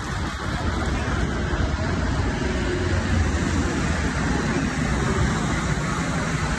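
Road traffic on a busy street: cars passing in a steady wash of noise with a heavy low rumble, picked up on a handheld phone microphone.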